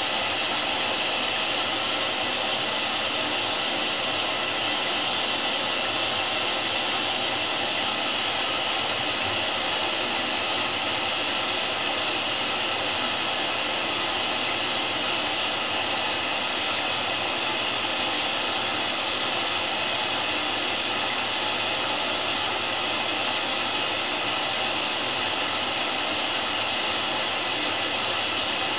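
Candy GrandO Plus washing machine on its wool programme giving off a steady, unbroken hiss with no drum rhythm or knocks.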